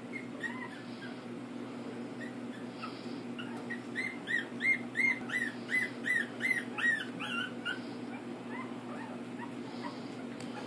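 Young pug puppies whimpering in short, high squeaks: faint squeaks scattered throughout, and a quick run of about a dozen louder ones, roughly three a second, from about four to eight seconds in. A steady low hum runs underneath.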